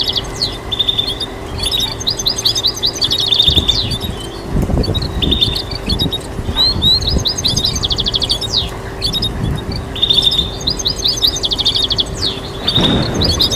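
European goldfinch singing: phrases of fast, high trilled notes, many to the second, repeated with short pauses between them. A low rumble runs underneath around the middle and again near the end.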